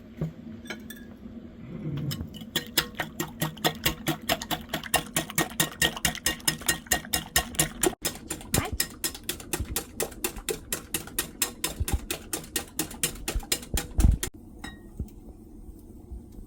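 Quick, even knocks of a kitchen utensil, about five a second, over a low steady hum. They stop suddenly after a heavier thump near the end.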